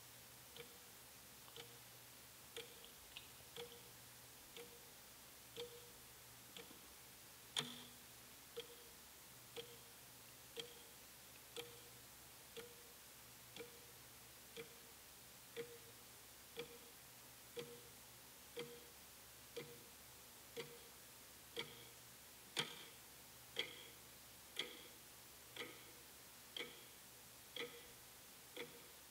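Wall clock ticking about once a second, each tick a sharp click. Two ticks stand out louder than the rest.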